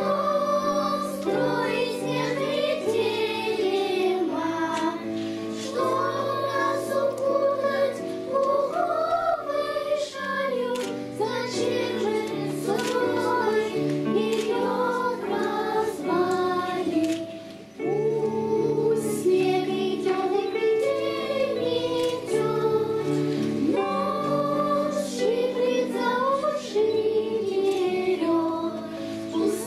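Children's choir singing a song with instrumental accompaniment; the singing breaks off for a moment a little past halfway, then carries on.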